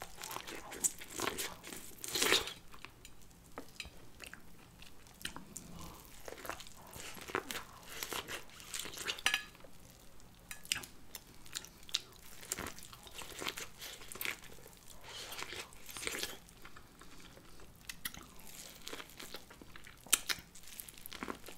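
Close-up crunching of corn on the cob as kernels are bitten off the cob and chewed, in irregular crisp bites.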